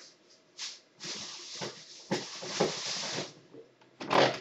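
Rustling and crinkling of shopping bags and packaging being rummaged through, mostly a stretch of about two seconds in the middle with a few small knocks.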